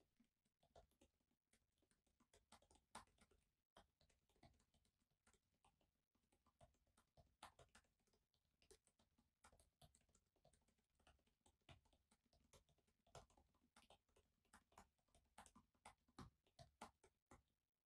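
Faint typing on a laptop keyboard: irregular key clicks, several a second.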